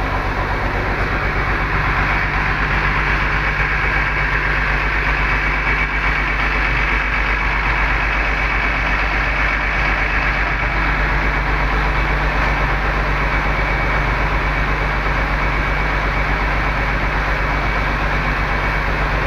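Bus engine idling steadily, an unchanging low hum with a constant hiss above it.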